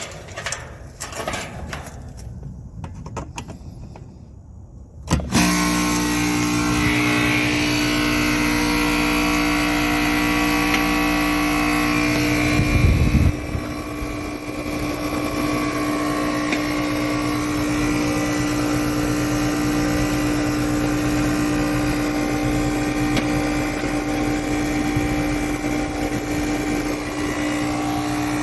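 A compressor motor starts suddenly about five seconds in after a few quiet clicks, then runs with a steady hum, briefly louder and lower about eight seconds after starting. The compressor runs but is not pumping.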